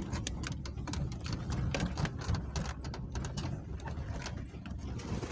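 Jeep driving over a rough unpaved mountain track, heard from inside the cabin: a low, steady rumble with constant irregular rattling and clattering of the body and fittings.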